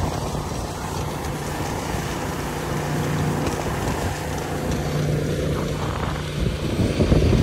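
Diesel engine running steadily at one speed, a low even hum.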